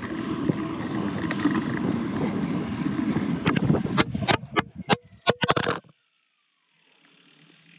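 Wind and road rumble on a bike-mounted GoPro while riding, then about three and a half seconds in a quick series of hard knocks and clatters as the camera shakes loose from vibration and tumbles, after which the sound drops suddenly to near silence.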